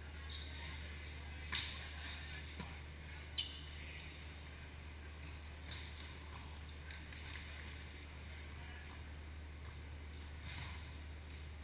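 Volleyball being struck during a rally in a large echoing hall: two sharp smacks about two seconds apart near the start and a few fainter knocks, over a steady low hum.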